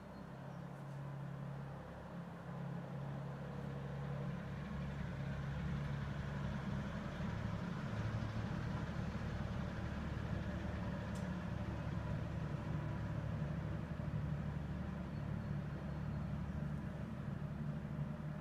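Steady low engine-like hum, growing louder over the first few seconds and then holding steady.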